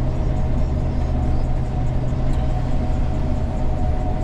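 Gleaner combine harvester running steadily while harvesting soybeans: a constant low engine rumble with a steady mid-pitched whine.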